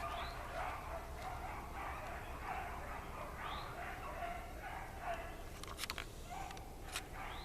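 A pack of rabbit-hunting beagles baying continuously, calls overlapping, as they run a rabbit's track. A few sharp clicks sound near the end.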